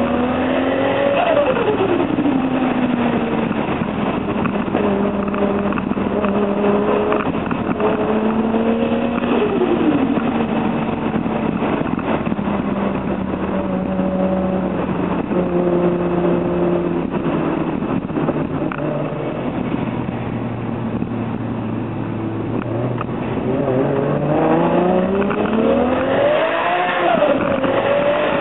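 Toyota Supra mk4's turbocharged 2JZ-GTE straight-six, fitted with a T04Z turbo, pulling hard through the gears: the pitch climbs and drops at upshifts about a second and nine seconds in. It eases off and falls in pitch through the middle, then winds up again near the end, with another shift just before the end.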